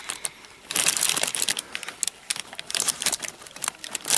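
Plastic bag crinkling and rustling as hands handle a cable and camera, a quick run of irregular crackles that picks up about a second in.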